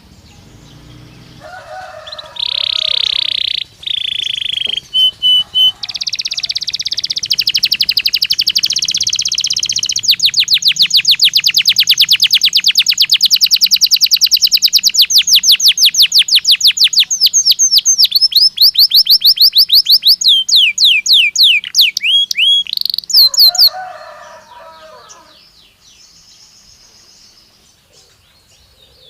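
Domestic canary of the Belgian type singing one long song: short opening warbles, then a long, fast trill of rapidly repeated high notes, breaking into quick falling sweeps before it stops about 24 seconds in.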